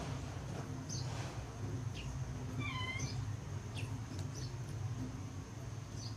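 A house cat meows once, a short high-pitched call about three seconds in, among brief high chirps and over a steady low hum.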